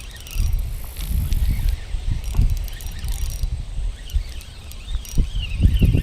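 Wind buffeting the microphone outdoors as a gusty, uneven low rumble, with faint high chirps above it.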